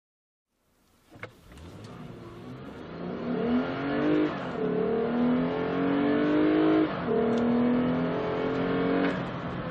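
2014 Lexus IS 350 F Sport's 3.5-liter V6 accelerating hard from a standstill, heard from inside the cabin. The engine note climbs in pitch, drops back at two upshifts of the eight-speed automatic, about four and a half and seven seconds in, and eases off near the end as the run to 60 mph finishes.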